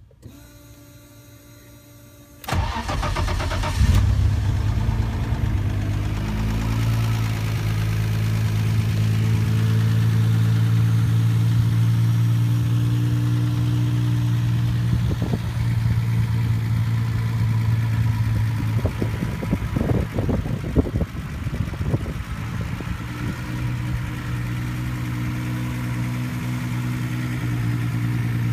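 BMW E30's engine cranking and catching about two and a half seconds in, flaring up briefly, then idling steadily. A few short sharp knocks sound around twenty seconds in.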